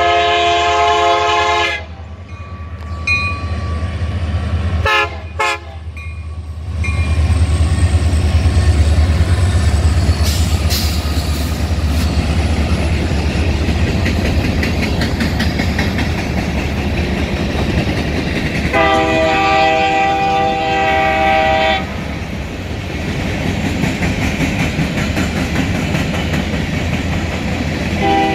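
A Union Pacific EMD SD70M diesel locomotive's multi-chime air horn ends a long blast about two seconds in and gives two short toots near five seconds. Then the deep diesel rumble of the lead SD70M and trailing SD70ACE builds loud as they pass. A second long horn blast comes at about 19 seconds, and another starts at the end, over the steady clatter of covered hopper cars rolling by.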